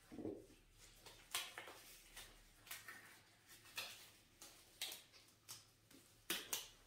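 Hands giving a buccal facial massage: faint, irregular clicks and smacks of fingers working the cheek skin and mouth, about two a second.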